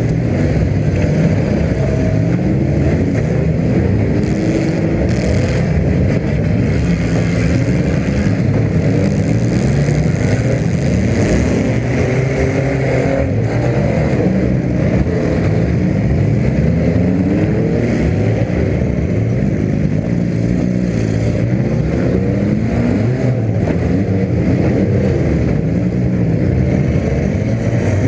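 Demolition derby car engine revving up and down as the car drives around the arena, with other derby cars' engines revving and running at the same time, so the rising and falling engine notes overlap.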